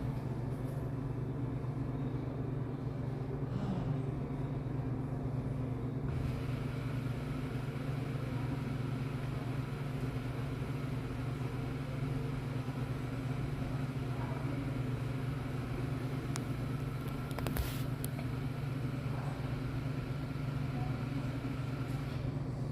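Steady low hum of a running vehicle engine, unchanging throughout, with a brief sharp click about three quarters of the way through.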